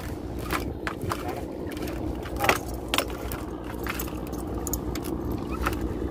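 Small fishing boat's engine running steadily, with scattered sharp clicks and rattles over it.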